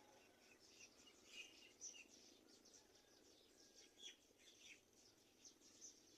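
Faint bird chirping: many short, high-pitched chirps and twitters, scattered irregularly over a low steady hiss.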